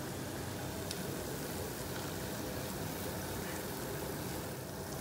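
Dough balls deep-frying in hot oil in a saucepan: a steady bubbling sizzle.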